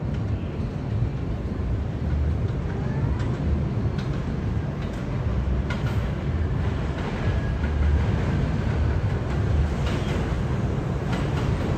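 A (6) train of R62A subway cars approaches along an elevated steel track, its wheels rumbling steadily on the rails and growing a little louder. Faint high-pitched wheel squeal and occasional clicks come in from about three seconds in.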